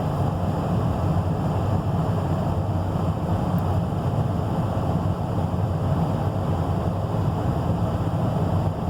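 Vehicle heater blower fan running steadily, air rushing from the vents during a heat output test, with a low steady hum underneath.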